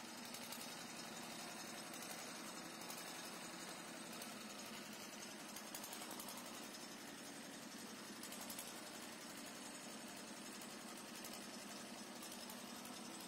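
Faint, steady background noise with a light flutter and no distinct events.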